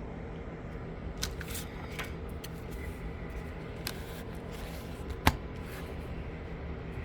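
Plastic Blu-ray case and paper insert being handled: a series of light clicks and rustles, with one sharper click about five seconds in, over a steady low hum.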